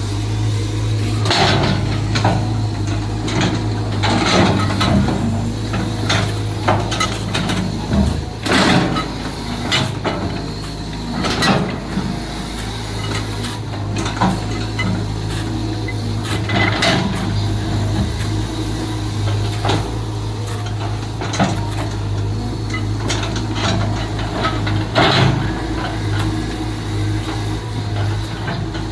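Caterpillar 320 GC excavator's diesel engine running steadily under work, with irregular metallic clanks and knocks from the machine digging, about one every second or few.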